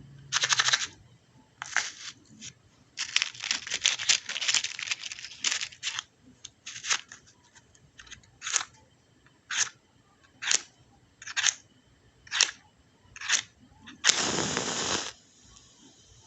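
Match struck against the striker strip of a matchbox: a flurry of quick scratches, then single scrapes about once a second, then a longer, louder flaring scrape near the end as the match head catches, and a faint hiss of it burning.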